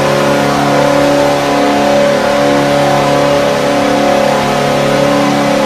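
Recorded ice hockey goal horn blowing one long, loud, steady chord of several tones.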